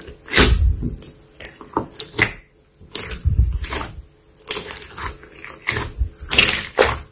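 Slime being squeezed and poked by hand, giving irregular sharp clicks and crackles in clusters with short pauses between them.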